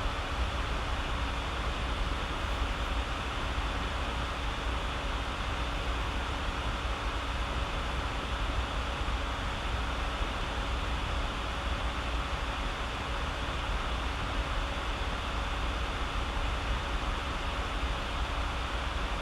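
Steady background hiss with a low rumble and a faint constant hum, like an air conditioner or fan running, unchanging throughout, with no distinct paper crinkles standing out.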